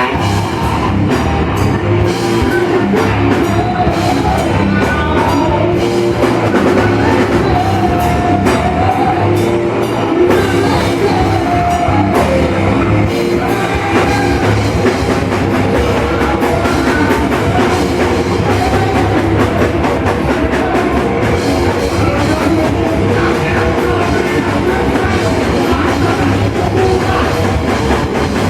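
Loud heavy rock played by a band: pounding drum kit and distorted instruments, with a voice singing over them.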